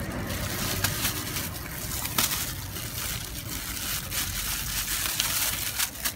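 Gloved hands pulling pods out of a halved jackfruit: thin plastic gloves crinkling and the sticky fruit flesh tearing wetly, with scattered small clicks.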